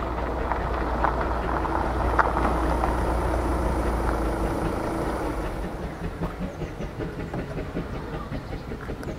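Vale of Rheidol narrow-gauge 2-6-2T steam tank locomotive approaching at low speed with a steady rumble that swells and then eases. In the second half it gives way to a rhythmic beat of about three to four a second.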